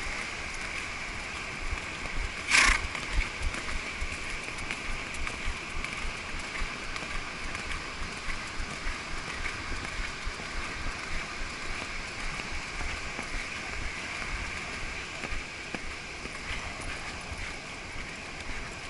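Hoofbeats of a ridden horse moving fast over packed wet beach sand, with wind rushing and buffeting over the microphone. A single sharp knock comes about two and a half seconds in.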